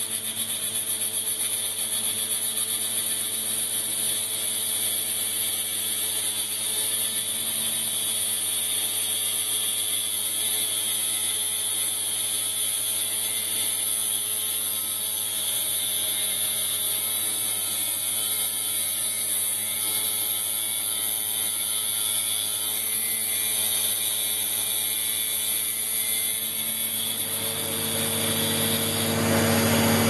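Metal lathe running with a belt-driven tool-post grinder: a small electric motor spins an abrasive cut-off disc that grinds into the spinning bolt blank, making a steady whine over a grinding hiss. It grows louder in the last couple of seconds.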